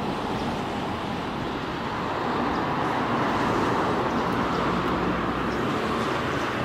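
Steady rumble of vehicles running outdoors, with no sharp knocks or horn.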